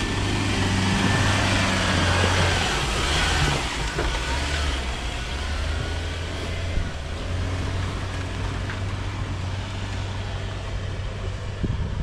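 Off-road 4x4 pickup truck engine running as it drives along a dirt mountain track. It is louder over the first four seconds, then steadier and a little quieter.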